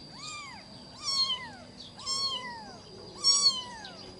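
Newborn kitten meowing four times, about once a second, each a high cry that rises and then falls away. It is the kitten's crying, which its keeper takes for hunger for milk.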